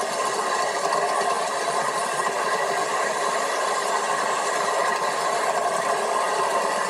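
Miniature train rolling along its track, a steady rattling running noise of wheels on rails, heard through a TV speaker with some hiss.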